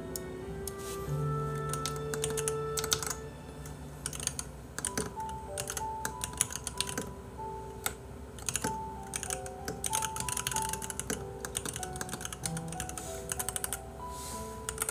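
Computer keyboard typing in irregular runs of quick clicks, over soft background music carrying a gentle melody.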